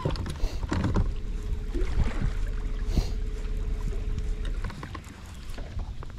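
Sounds aboard a fishing boat on the water: a low rumble of wind on the microphone, a thin steady hum from about a second in until about four and a half seconds, and a few light knocks.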